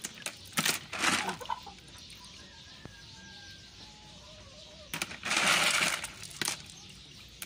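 Wet seashells, cockles and small clams, clattering together in a plastic basin of water as a hand scoops and stirs them: a few short rattles in the first second and a half, then a longer rattle about five seconds in.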